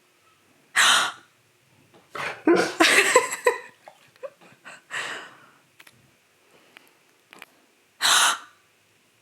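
Exaggerated, dramatic gasps from a person: short breathy gasps about a second in, a run of them between two and four seconds, another near five seconds and a loud one about eight seconds in.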